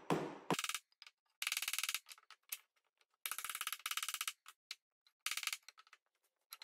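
Oak half-blind dovetail joints being tapped and pushed together for a dry fit: two single knocks, then several short runs of quick, light ticks.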